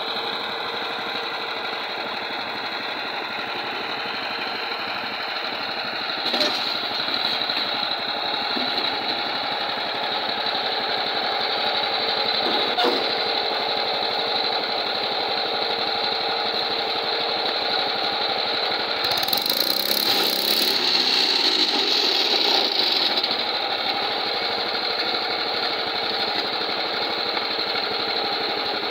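Small air-cooled petrol engine on a concrete block-making machine running steadily, with a few clanks from the machine. It gets louder and harsher for a few seconds about two-thirds of the way through.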